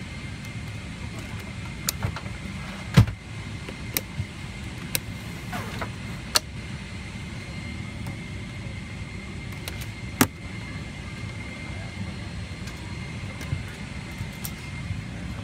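Steady hum of a Boeing 777-300ER's cabin air system on the ground, with a faint whine. Over it come scattered plastic clicks and knocks from hands working the seat's armrest lid and fittings, the loudest two about 3 s and 10 s in.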